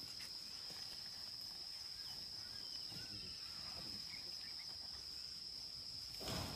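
Steady high-pitched drone of insects, with a few faint bird chirps. A brief rustling noise comes near the end.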